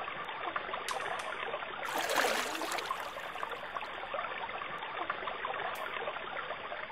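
Running water, a steady trickling and babbling like a small stream, swelling briefly about two seconds in.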